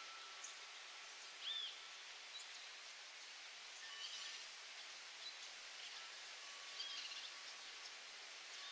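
Faint steady hiss with a few short, high bird chirps scattered through it. The loudest chirp comes about a second and a half in.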